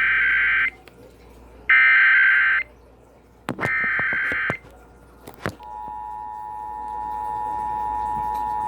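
Emergency Alert System SAME data header: three short bursts of shrill digital screeching, each about a second long. After a couple of clicks, the EAS two-tone attention signal starts about five and a half seconds in and holds steady. This is the start of a new alert message, here an Ohio Required Monthly Test.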